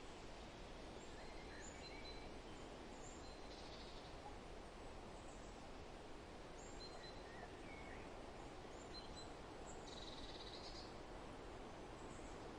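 Forest ambience: a steady wind-like rustle under scattered short bird chirps and whistles, with a brief trill about four seconds in and a louder one about ten seconds in.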